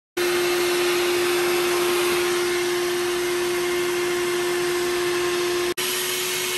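Vacuum cleaner running steadily through a hose with a crevice tool, a constant hum over a rushing hiss, sucking up dog hair from car upholstery. It cuts in abruptly at the start and drops out for an instant about five and a half seconds in.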